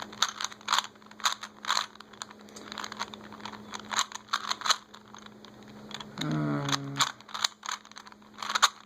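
Plastic Rubik's cube being turned by hand: irregular clicks and clacks, a few a second, as its layers are twisted during a beginner's-method solve.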